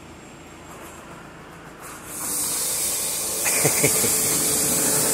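A loud, steady hiss of spraying air or water starts suddenly about two seconds in and keeps going, with a few short pitched sliding sounds over it about a second later.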